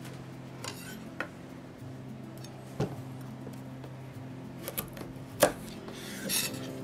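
Kitchen knife cutting a raw carrot on a wooden cutting board: a few irregular knife strikes through the carrot onto the board, the loudest about five and a half seconds in. A steady low hum runs underneath.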